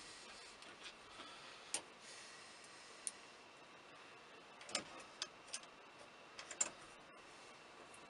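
Light, sharp clicks and ticks of small metal and plastic parts being handled and seated in a car's steering column: two spaced clicks, then a quicker run of them from about five to seven seconds in.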